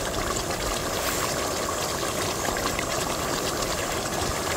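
Portable gas stove burner hissing steadily under a pot of simmering curry.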